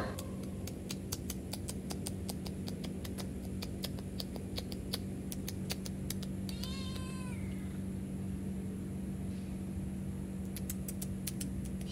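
A domestic cat meows once, a short call falling in pitch about six and a half seconds in. Behind it are a steady low hum and a run of small, scattered clicks.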